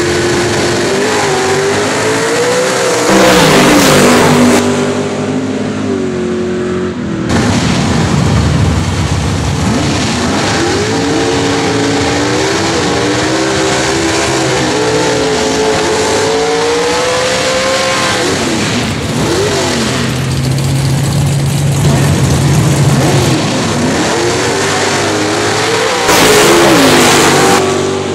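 Nostalgia Pro Stock drag cars' big V8 engines revving hard, their pitch climbing and dropping with each blip of the throttle. The loudest stretches are full-throttle launches, one about three seconds in and another near the end, with a steady held engine note in between.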